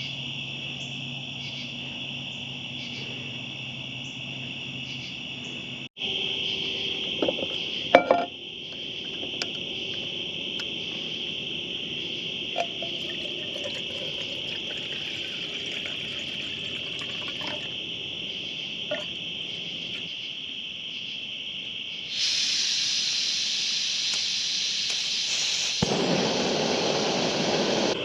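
Night insect chorus: a steady high-pitched trill with a faster, even pulsing above it. A few sharp clicks and knocks come around seven to eight seconds in, and a broader hiss fills the last few seconds.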